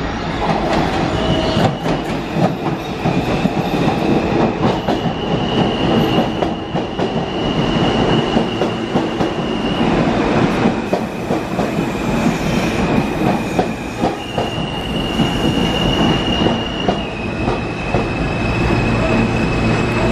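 New York City subway trains running through an open-cut station: wheels rumbling and clacking rapidly over rail joints, with a high wheel squeal that comes and goes. A steady low hum sets in near the end.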